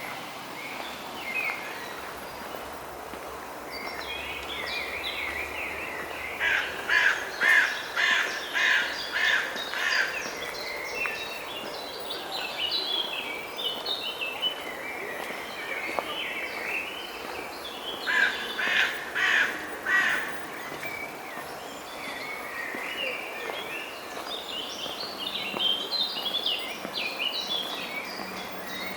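Birds calling: a bird gives two runs of loud, evenly repeated calls, about eight calls some seven seconds in and about five near twenty seconds in. Smaller birds chirp and twitter throughout over a faint steady background noise.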